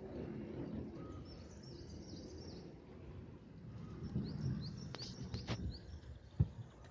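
Outdoor ambience: small birds chirping in short, high, curving notes over a steady low rumble. Two sharp clicks come about five seconds in, and a dull thump follows near the end.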